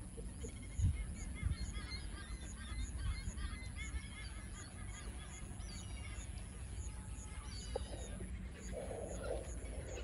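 A chorus of many birds calling at a waterbird colony: overlapping short chirps and honking calls, thickest in the first half, with a brief lower call near the end. A low rumble runs under it, with two low bumps about a second in.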